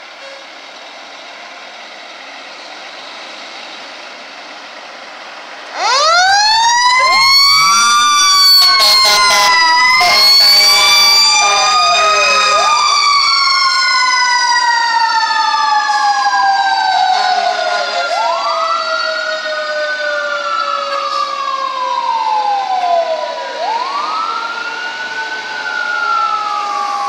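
Fire trucks leaving on an emergency call: a truck engine running, then about six seconds in sirens start at once. One siren winds up and then coasts slowly down in pitch, while a wailing siren rises sharply and falls about every five and a half seconds. There are short horn blasts around eight to ten seconds in.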